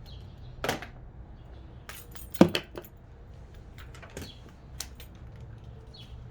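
Metal hand tools clinking and knocking as they are handled and set down: a few separate sharp clicks, the loudest about two and a half seconds in.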